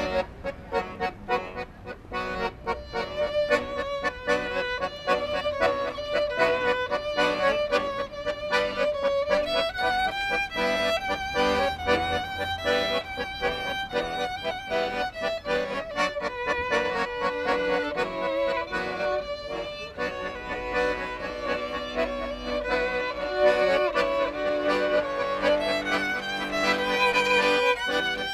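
A violin and a piano accordion playing a tune together as a duo.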